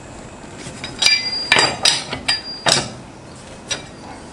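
Sharp metallic clinks of a wrench and socket on a pickup's wheel nuts as they are loosened: about five ringing knocks in quick, uneven succession, then a fainter one.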